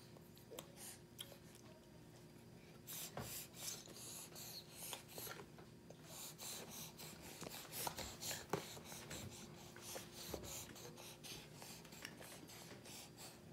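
A baby's hands rubbing, patting and scraping on a plastic high-chair tray and pushing grapes about, a run of small scrapes and light knocks starting about three seconds in, over a faint steady hum.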